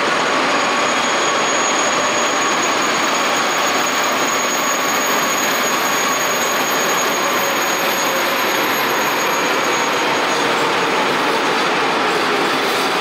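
TGV Euroduplex high-speed train's power car rolling slowly in and coming to a stand, its running equipment giving a steady loud rushing hum with a thin high whistle.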